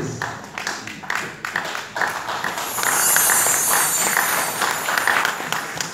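Audience clapping and applauding, a dense patter of many hands that swells about two and a half seconds in.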